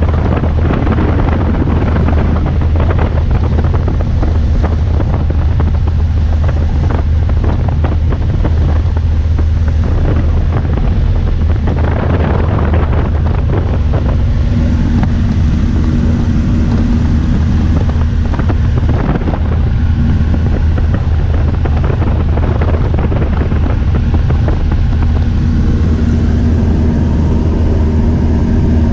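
Steady drone of a single-engine light aircraft's engine and propeller heard inside the cabin in flight, mixed with heavy wind buffeting the microphone. A higher hum joins the drone about halfway through.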